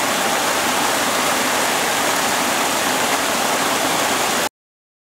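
Steady rushing of flowing water, cutting off abruptly near the end.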